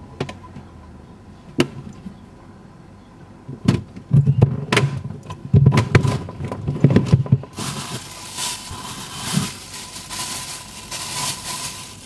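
Refrigerator contents being handled: sharp clicks and knocks, then a run of dull clunks as containers are moved about on the shelves. From about seven and a half seconds in, a steady hiss takes over.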